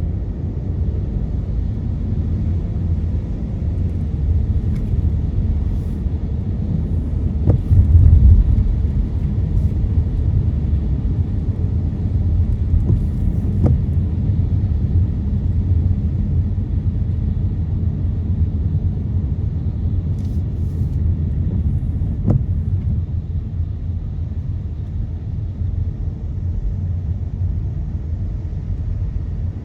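Car driving on a wet road in the rain, heard from inside the cabin: a steady low road and tyre rumble, with a heavier bump about eight seconds in and a few faint ticks.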